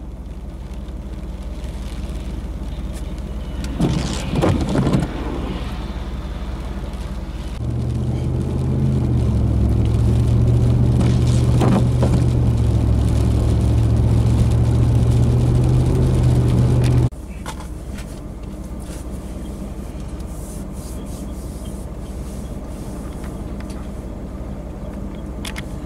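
A vehicle engine running with a steady low hum. It turns much louder and deeper for several seconds in the middle, and a brief rustling scrape comes around four seconds in.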